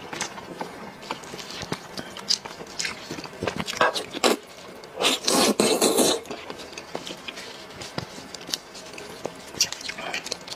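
Close-up eating sounds of a braised sheep's head: wet smacking and sucking on the meat, with small sharp clicks as bone is pulled apart, and a longer, louder slurp about five seconds in.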